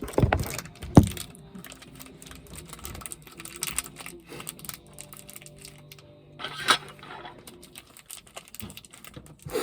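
Irregular clicks, taps and knocks of plastic slime containers and lids being handled and pried open, with a sharp knock about a second in and another near the seven-second mark.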